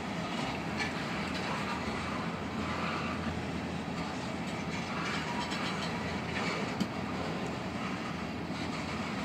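Freight train of black tank cars rolling past, a steady rumble of steel wheels on rail, with one sharp click about seven seconds in.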